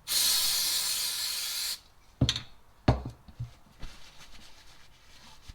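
An aerosol spray can hisses in one steady burst of under two seconds that cuts off sharply, then two sharp knocks follow.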